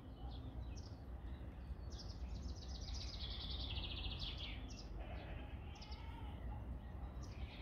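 Small birds singing: scattered short high chirps, and from about two seconds in a rapid trill that steps down in pitch over some two and a half seconds, over a steady low background rumble.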